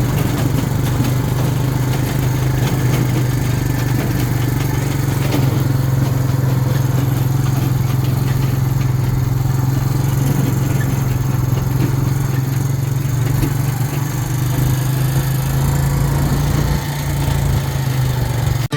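Engine of a ride-on farm vehicle running at a steady speed while being driven, a constant low engine hum with road noise over it.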